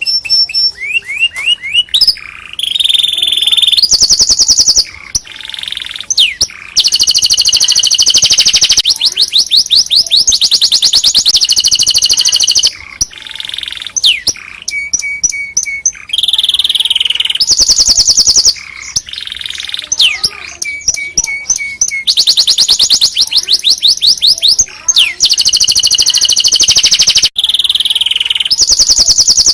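Domestic canary singing: long phrases of fast trills and rapidly repeated high notes, with brief breaks between phrases.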